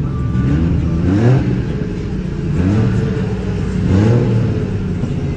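Car engine idling and being revved in short blips, its pitch sweeping up quickly about three times.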